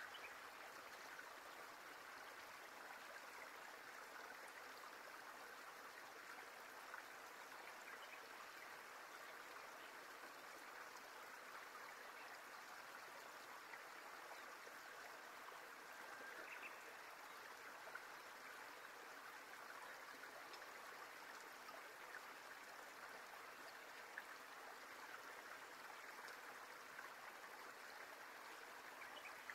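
Near silence: faint, steady outdoor ambience, an even hiss with a few faint ticks.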